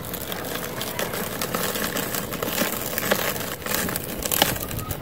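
Hands squeezing and crumbling a packed ball of dry cement powder: a continuous dense crunching and crackling, with sharper cracks about three seconds and four and a half seconds in.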